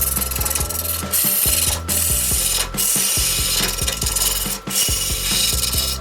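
A turning tool cutting into wood spinning on a lathe, with a continuous scraping hiss of shearing wood. It is broken three times by brief pauses as the tool comes off the work.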